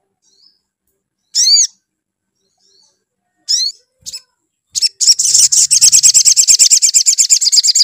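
Sogon (sogok ontong sunbird) calling: two high, arched chirps, then from about five seconds in a fast continuous trill of roughly a dozen notes a second.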